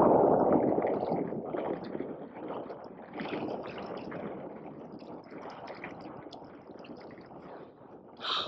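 Water splashing and gurgling in an ice-fishing hole as a hooked northern pike is pulled out. It is loudest at first and dies away over the following seconds.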